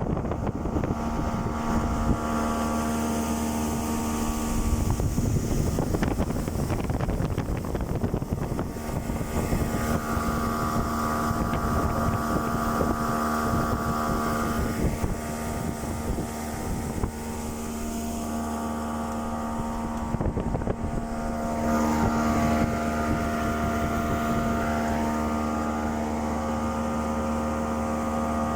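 Mercury 40 outboard motor running on a boat underway, its steady drone rising and falling in pitch a couple of times as the throttle changes.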